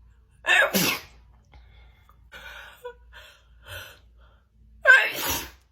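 A woman sneezing twice in a sneezing fit: a loud wet sneeze about half a second in and another near the end, with quieter short breaths between them.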